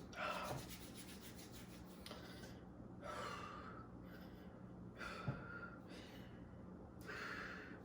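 Soft breathing: a few quiet breaths about two seconds apart, with a faint click a little after five seconds in, over a steady low room hum.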